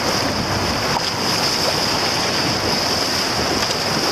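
River rapids: steady rushing of whitewater around a small paddled boat heading into the chute.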